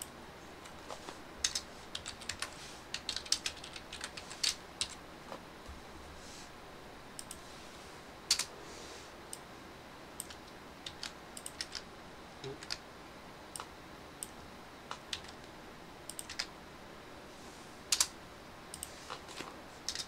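Computer keyboard and mouse clicked and tapped irregularly, in short clusters of a few clicks with pauses between; the sharpest clicks come about 8 seconds in and about 18 seconds in.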